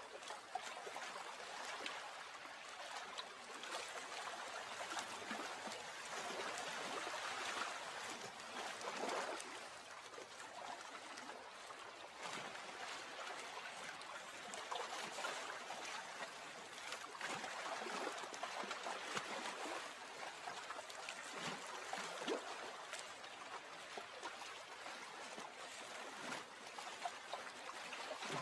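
Water trickling and babbling steadily, with many small splashes and drips, gently swelling and easing.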